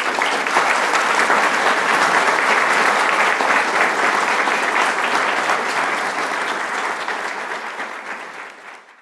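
Audience applauding: a dense, steady clapping that tapers off in the last few seconds before cutting out.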